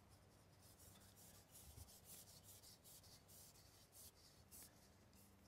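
Faint, irregular rubbing and scratching as a small camping gas stove burner is screwed onto its gas canister.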